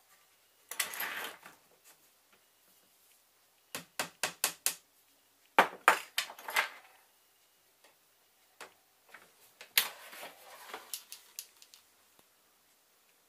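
Small hammer tapping track pins into an MDF baseboard: quick runs of sharp taps, about five in half a second around four seconds in, with further clusters about six and ten seconds in, and a short scraping rattle about a second in.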